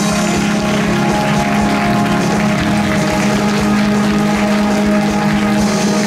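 Audience applauding steadily while music plays with sustained, held notes.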